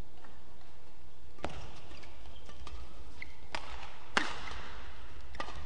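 Badminton rackets striking a shuttlecock in a fast doubles rally: about four sharp hits, the loudest about four seconds in. Between the hits come short squeaks of shoes on the court floor, over a steady low hum in the hall.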